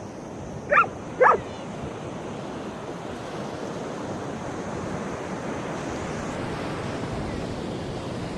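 A dog barks twice in quick succession about a second in, short high barks, followed by the steady wash of ocean surf breaking.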